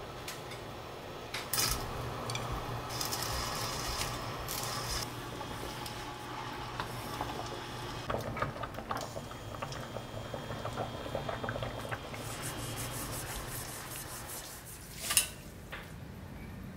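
Wooden chopsticks stirring glass noodles in a stainless steel pan of hot water, tapping and scraping against the pan, over a steady bubbling of the water. A single sharp clack near the end.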